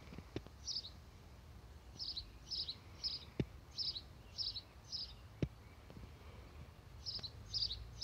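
House sparrow chirping: single short chirps about two a second, with a pause of a couple of seconds before they resume near the end. A few soft knocks fall between them.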